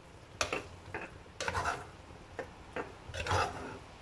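Metal spoon stirring chunks of apple through thick, cornstarch-thickened syrup, scraping against the bottom and sides of a coated saucepan in about six short, irregular strokes.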